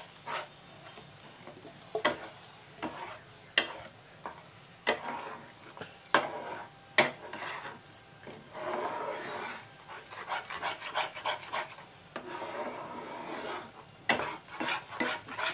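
Metal spoon stirring thick gram-flour batter through bubbling sugar syrup in a pan, scraping over the pan's bottom with sharp knocks against the pan every second or two.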